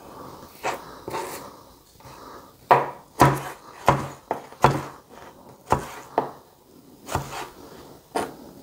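Kitchen knife chopping fresh cilantro on a cutting board: about a dozen uneven strikes, each a sharp knock of the blade against the board.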